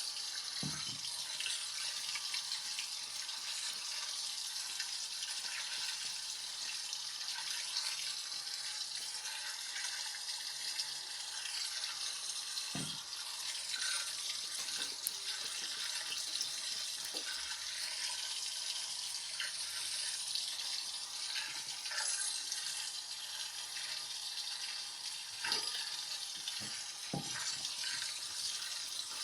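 LG washing machine on its heavy-load cycle with water steadily rushing into the drum, and a few soft low knocks from inside the machine.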